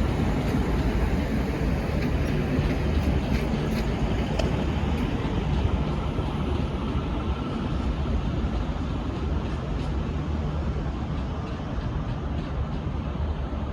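V/Line VLocity diesel multiple unit running along the tracks: a steady low rumble of engines and wheels that eases slightly as it draws away.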